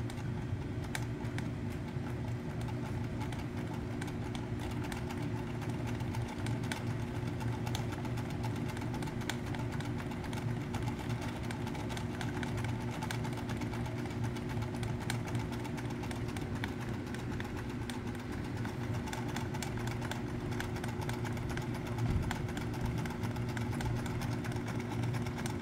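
Pfaff 1222E electric sewing machine stitching fabric at a steady speed: an even motor hum with a fast, unbroken clatter from the needle mechanism.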